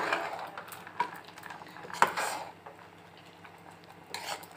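A spoon stirring wet dal in a metal pressure cooker pot, scraping through the contents with several knocks against the pot, quieter in the second half.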